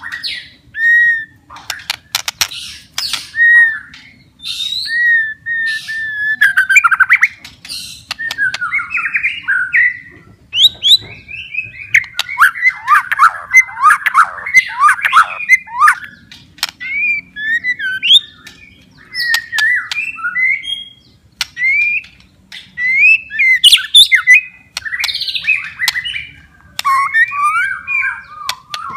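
White-rumped shama singing a loud, varied song: gliding whistled phrases, sharp clicks and a long run of rapid chattering notes.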